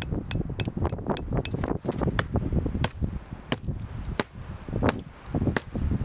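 Hatchet blows on wood: a series of sharp knocks, about one every two-thirds of a second.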